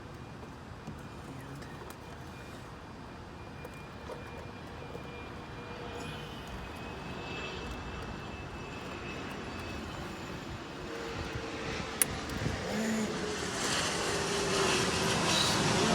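Distant engine noise, steady and slowly growing louder, with a single sharp click about twelve seconds in.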